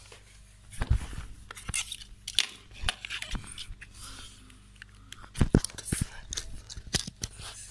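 Handling noise: irregular clicks, scrapes and knocks as a handheld phone is moved and fumbled, with the loudest knocks about five and a half seconds in.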